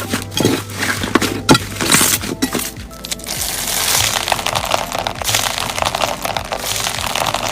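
Crunchy slime being squeezed and pressed, giving sharp crackles in the first second or so and then a dense run of crackling, over background music.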